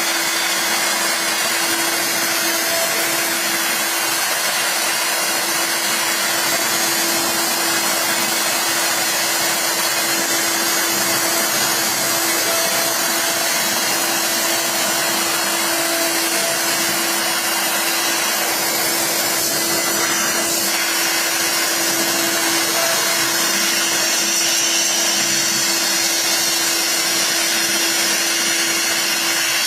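CNC router spindle running steadily while its bit cuts acrylic: a constant tone over an even rushing cutting noise.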